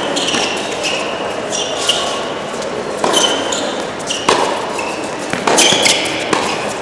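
Tennis doubles rally on an indoor hard court: a ball struck back and forth by rackets, with four sharp hits about a second apart in the second half, and sneakers squeaking on the court surface between the shots, ringing in a large hall.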